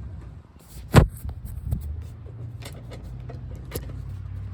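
Handling knocks from working a fuel filter and hose back into an ATV's frame: one sharp knock about a second in, then a few lighter clicks, over a low steady rumble.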